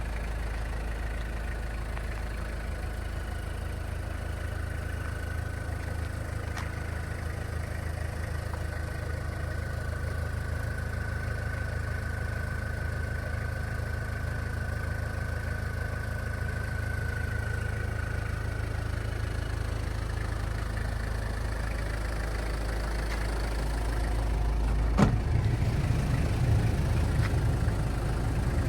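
Toyota Land Cruiser 70 Prado (LJ71G) engine idling steadily, with a thin steady whine for several seconds in the middle and one sharp thump near the end.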